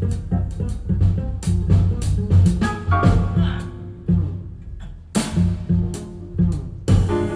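Music played back through Avalon Acoustics loudspeakers in a listening room: a band track with drums and a strong bass line, with sharp cymbal and drum hits every second or so.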